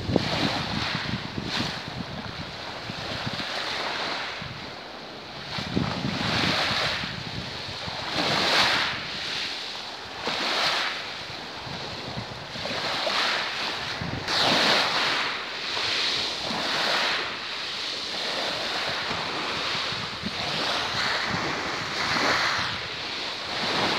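Small sea waves lapping and washing over a pebble-and-shell shore, each wash a rush of hiss swelling every couple of seconds. Wind buffets the microphone with a low rumble.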